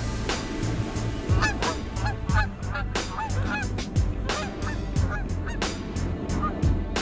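Canada geese honking: a flock calling in short, quick honks, several a second.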